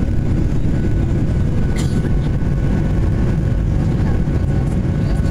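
Steady low rumble of jet engines and rushing air inside the cabin of a Ryanair Boeing 737-800 climbing after takeoff, with a faint steady whine and a brief click about two seconds in.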